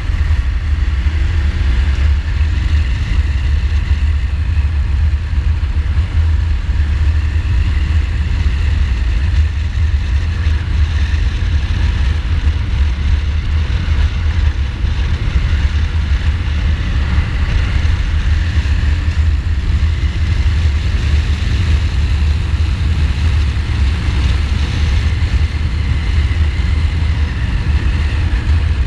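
Steady low wind rumble on the bike-mounted microphone, over a 2015 Ducati Multistrada's V-twin engine running at road speed, its pitch rising and falling a little with the throttle.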